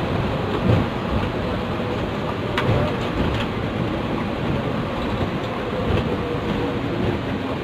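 Steady rumble of a moving long-distance coach heard from inside the cabin: engine and road noise with occasional knocks and a sharp click about two and a half seconds in.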